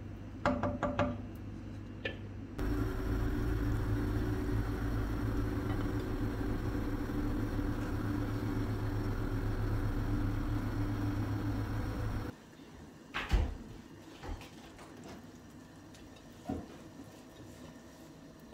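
A wooden spoon clicks against a pot of lentil soup. Then comes a steady low rumble and hiss as the soup boils in the pot under its glass lid, which stops suddenly. A few separate knocks follow as the lid and spoon touch the pot.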